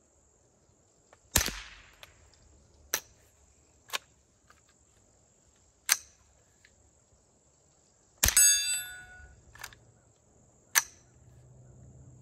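Two shots from a Winchester Wildcat .22LR semi-auto rifle firing unsuppressed CCI Quiet low-velocity rounds, each a short sharp crack; the second is followed by a brief metallic ring. Between the shots come several sharp metallic clicks of the bolt being worked by hand, because the light rounds do not cycle the action. A steady high insect buzz sits underneath.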